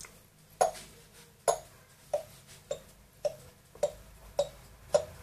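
A pet parrot making a run of eight short popping clicks, evenly spaced at about two a second.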